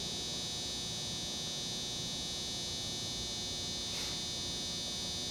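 A steady high-pitched electrical whine, with one faint click about four seconds in.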